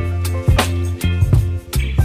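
Background pop music with a funky beat: bass, drums and other instruments, no singing in these seconds.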